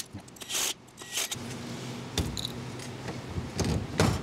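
Metal parts clinking and clicking as a Shengyi SX1 geared hub motor is put back together. About a second and a half in, a steady hum starts as the motor spins on its stand in a spin test, with a few sharp knocks over it. It runs smoothly, with no scraping or ticking, showing that welding the freewheel clutch shut caused no distortion or debris.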